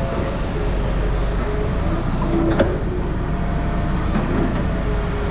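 Vehicle engine running steadily with a low rumble, with a short knock about two and a half seconds in.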